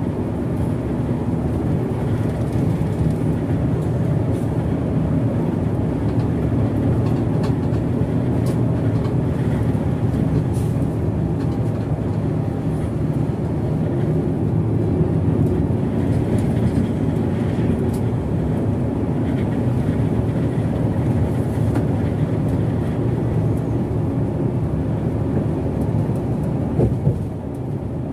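Hino RK8 bus's six-cylinder diesel engine and tyre rumble heard from inside the cab at steady highway cruise, a dense, even drone. There is a brief knock near the end.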